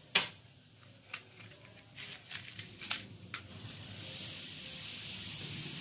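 Lighting the fire of an antique fire-powered table fan: a sharp click, then several fainter clicks and scrapes, then a steady hiss that sets in about four seconds in.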